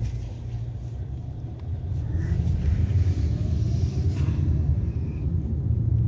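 Low, steady rumble of road and engine noise heard from inside a moving Hyundai car, growing louder about two seconds in.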